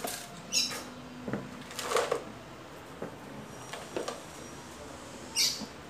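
Potting soil scooped from a pile on a tiled floor and dropped into a plastic pot: several short scrapes and rustling spills.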